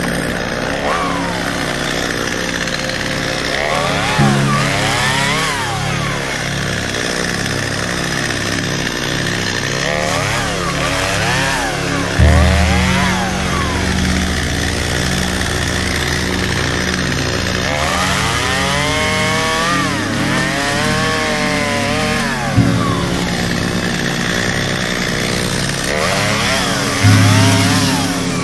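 Stihl MS250 two-stroke chainsaw limbing a fallen tree. It runs steadily and revs up and falls back several times as it cuts through the branches.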